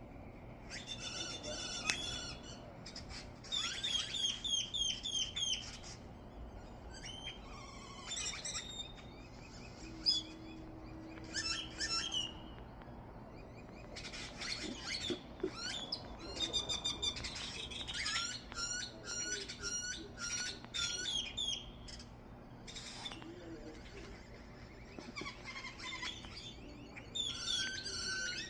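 Several small birds chirping and twittering, in bouts of rapid repeated high calls with short pauses between.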